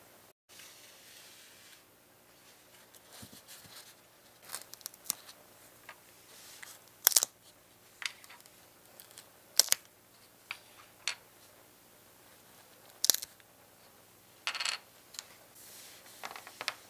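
Small scale-model car parts being handled and fitted together by gloved hands: scattered sharp clicks and taps as wheels and brake discs are pressed onto the chassis, a few of them louder, with short scraping rasps near the end.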